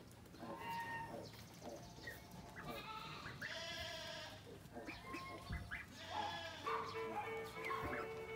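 Farm animals bleating, several separate calls one after another, over background music.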